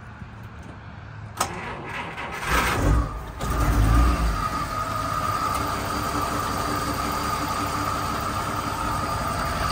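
1948 Chrysler Town & Country's Spitfire flathead engine being cold-started. A click comes a little over a second in, then about two seconds of cranking; the engine catches with a brief rev and settles into a steady idle.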